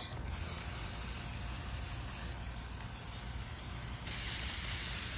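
Aerosol can of hammered-finish spray paint spraying in a steady hiss.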